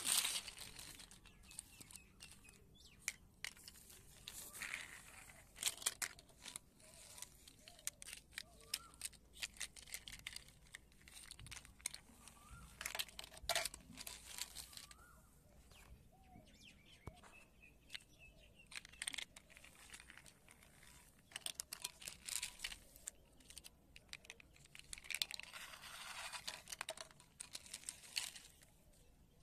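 Plastic toy blocks and a plastic toy dump truck handled and knocked together on a cloth: scattered clicks and rustling of the fabric, with a few faint bird chirps.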